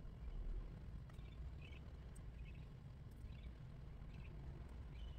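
Faint room tone with a steady low hum, and soft short high sounds recurring about every half second to a second.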